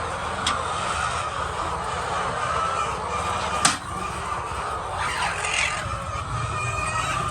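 Chickens calling in a poultry house over a steady background hum. There are a couple of sharp clicks, the louder one about three and a half seconds in.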